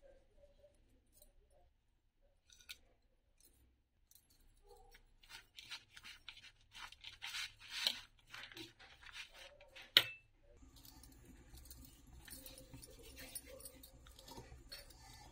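A spoon stirring grated cabbage and carrot in a plastic bowl: a quick, scratchy rustling and scraping for several seconds that ends in one sharp knock, the loudest sound. Then only faint handling sounds as dough is pressed by hand.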